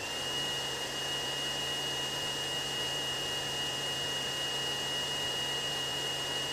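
xTool D1 Pro diode laser engraver running while engraving bare stainless steel. It makes a steady high-pitched whine over a low hum and hiss, and the whine settles in pitch right at the start.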